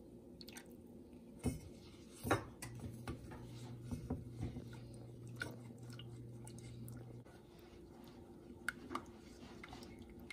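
Silicone spatula stirring a sauce thickened with cornstarch slurry in a metal saucepan: soft wet squelching and small scrapes and clicks, with two louder knocks about one and a half and two and a half seconds in. A low steady hum runs under it from about two and a half to seven seconds in.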